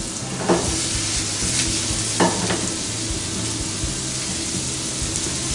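Chopped onion, green pepper and carrot sizzling in olive oil in a frying pan, with a couple of knocks of a utensil against the pan, as diced venison is tipped in from a bowl.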